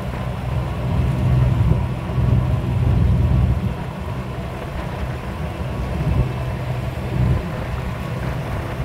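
A small car ferry's diesel engine running under way: a steady low drone. Wind buffets the microphone in uneven low gusts.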